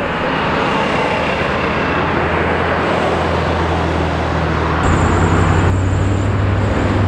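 A motor vehicle engine runs steadily over road traffic noise. About five seconds in the low engine note shifts and grows stronger, and a thin high whine joins it.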